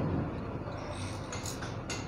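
A few light metal clicks as a steel rod is worked against the open aluminium housing of a Bock bus AC compressor, over a steady background hum.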